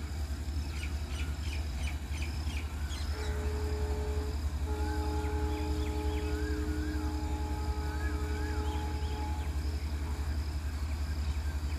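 Low rumble of a passenger train rolling away along the track, with a long, distant two-tone train horn held for several seconds from about 3 s in, and birds calling over it.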